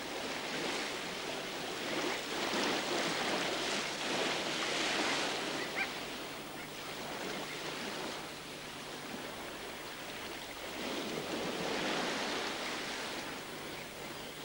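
Surf washing up a sandy beach, a steady rush that swells twice as waves come in and then eases.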